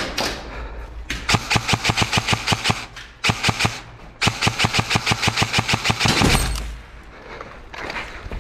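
Airsoft electric rifle (AEG) firing three full-auto bursts at about nine shots a second: a long burst about a second in, a short one, then another long one. The last burst runs into a brief loud rush of noise.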